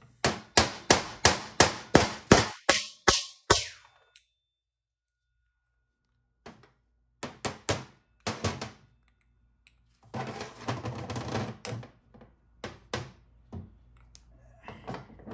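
A hammer striking a bushing driver about a dozen times in quick succession, roughly four blows a second, driving a worn bushing out of a Dodge 48RE transmission sun gear. Later come scattered metal clinks and a couple of seconds of clatter as the parts are handled on a steel workbench.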